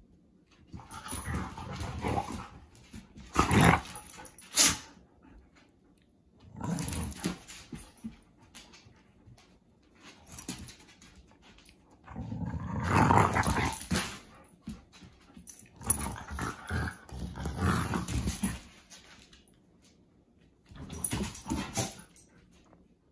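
Two dogs play-wrestling: bouts of play growling and scuffling, about six of them with short pauses between, loudest around the middle.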